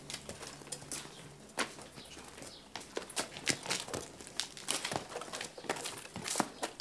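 A donkey's hooves clopping and shuffling irregularly on stone paving as it is led by the halter: scattered sharp knocks and clicks, with no steady rhythm.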